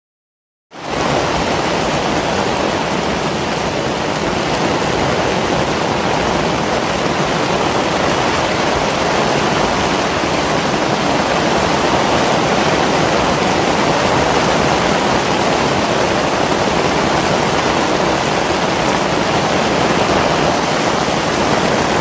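Loud, steady rushing noise that starts abruptly just under a second in and holds even throughout.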